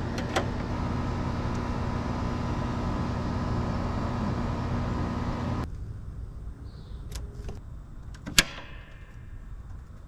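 Steady whirring hum of a running central air-conditioning unit's outdoor condenser, which cuts off suddenly about halfway through. After that the background is quieter, with a few sharp clicks, the loudest near the end.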